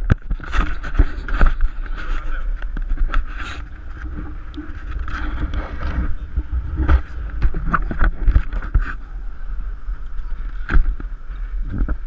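Wind buffeting the microphone with a steady low rumble, and choppy waves slapping a small open Hybrida boat's hull, with irregular knocks throughout.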